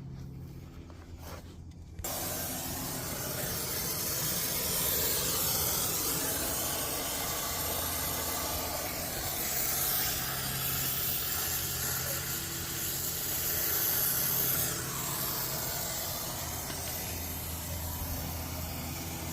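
Pressurised gas hissing steadily during brazing of the refrigerant line set. It starts suddenly about two seconds in and cuts off at the very end.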